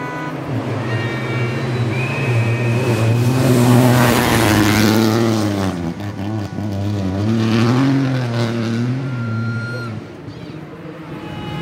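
Rally car passing at speed on a gravel stage, its engine revving and falling back through gear changes. It is loudest about four seconds in, with a rush of tyre and gravel noise, revs up again, then fades away about ten seconds in.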